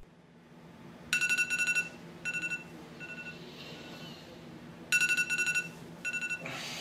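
Smartphone alarm going off: quick runs of high electronic beeps, loud at first, then in shorter, fainter bursts, the cycle starting again about four seconds later. Bedding rustles near the end as the sleeper stirs.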